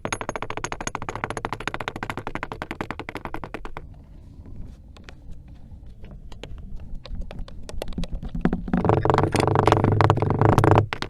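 Space recording of Jupiter's radio emissions played as sound: a rapid, dense crackle of clicks that thins out midway, then swells into a loud humming roar near the end that cuts off suddenly.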